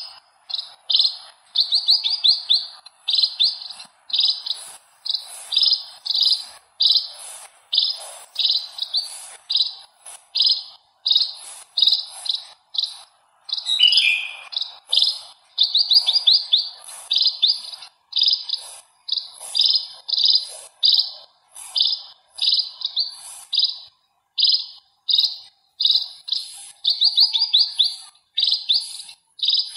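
House sparrow chirping: short, bright chirps repeated about twice a second in a steady rhythm, with one lower call falling in pitch about halfway through.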